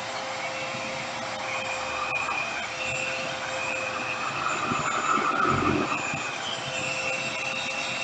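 RevAir reverse-air hair dryer running, its motor drawing a section of hair into the wand: a steady airy rush with a constant high whine, swelling briefly about five seconds in.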